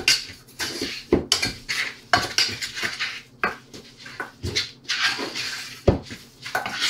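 Utensil stirring a thick, wet paste of baking soda, cornstarch and water in a small stainless steel saucepan, scraping and clinking against the pan's sides and bottom in irregular strokes, about two a second.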